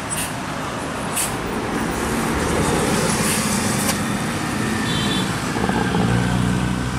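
Traffic on a mountain hairpin: a Mercedes-Benz OH 1626 tour bus's diesel engine passing close and pulling away, then cars and motorcycles going by. The engine noise grows louder through the middle as the motorcycles pass near, with a few short sharp ticks in the first second or so.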